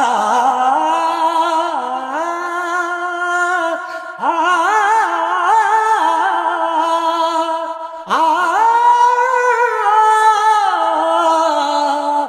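A man's solo voice, unaccompanied, singing a naat in long, drawn-out wavering notes with ornaments. There are three phrases, a new one starting about four seconds in and again about eight seconds in.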